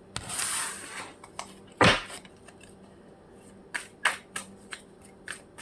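Tarot cards being handled: a brief rustle of shuffling, a sharp slap of a card laid down about two seconds in, then a few light taps and clicks.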